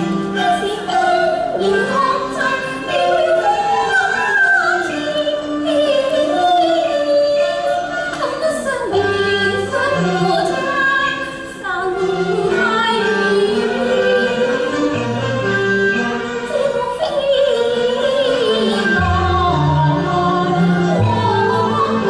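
Cantonese opera singing, a sung melody with sliding, wavering pitch over its instrumental accompaniment.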